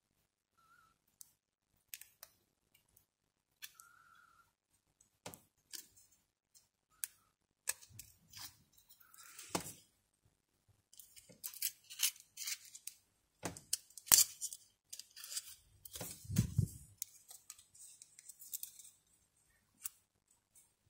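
Small sharp clicks, snaps and scrapes of a thin metal tool and fingers prying an LCD backlight's sheet-metal back plate off its plastic frame, sparse at first and busier in the second half. A dull low bump comes about 16 s in.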